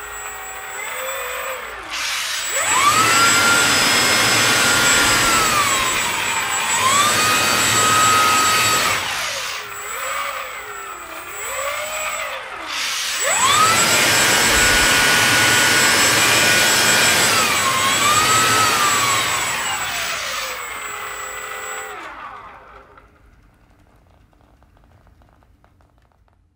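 3D-printed 100 mm electric ducted fan, a GEnx-1B model driven by a brushless motor, spooling up twice to a high steady whine. Each run dips briefly in pitch and climbs back before spinning down. During the second run the thrust reverser is deployed with the cowl slid open, and the sound dies away near the end.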